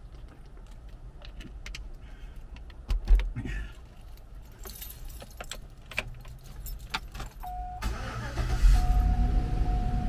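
Keys jangling and clicking with a thump about three seconds in, then the 2009 Chevy Silverado 1500's engine starting about eight seconds in and running. A steady warning tone sounds over it, the truck's door-open chime.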